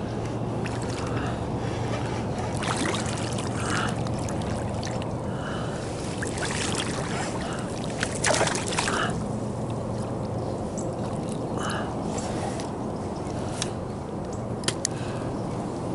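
Water splashing and sloshing as a hooked bass thrashes at the surface beside a float tube, with the loudest splash about eight seconds in.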